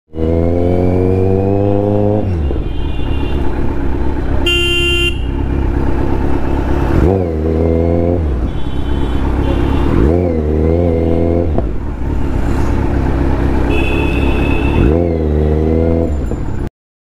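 Kawasaki Z900's inline-four engine accelerating and falling back four times, the pitch climbing with each throttle pull. A vehicle horn honks once, briefly, about four and a half seconds in.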